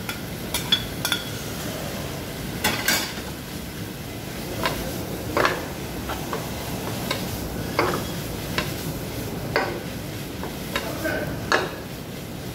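Bitter gourd being stir-fried with pork and egg in a frying pan: a spatula knocks and scrapes against the pan about once a second over a steady sizzle.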